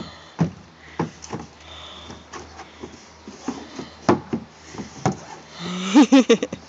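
Irregular light knocks and thumps of a toddler's hands and knees on a hollow plastic climbing structure as he crawls through it. A short vocal sound comes near the end.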